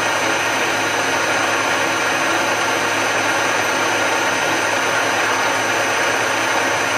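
Milling machine running steadily with its cutter cutting into a metal vise jaw, a constant hum and whine.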